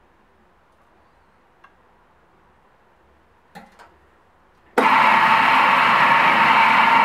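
A Nagema bowl cutter is switched on almost five seconds in: its motor and spinning bowl start suddenly and run on with a loud, steady noise as it chops meat for gothaj sausage. Before that it is nearly quiet, with a few light knocks.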